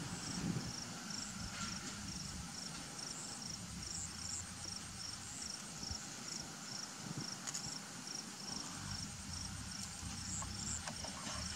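Insects chirping in an even, repeating series of short, high-pitched pulses, with faint outdoor rumble underneath.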